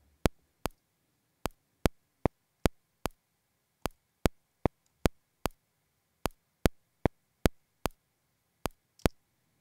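Cubase metronome click track playing a custom click pattern: sharp clicks about two and a half a second, with every sixth beat left silent, so they fall in groups of five. Some clicks are louder than others as accents. The clicks stop about nine seconds in.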